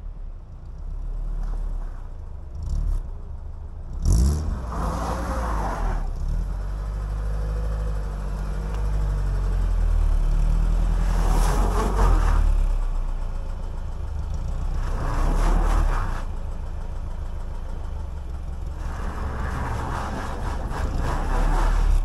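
Lada Niva VAZ-21213's four-cylinder petrol engine revving hard in repeated surges, four times, while the car is stuck in a ditch with a rear wheel hung in the air and spinning, the differential lock not engaged.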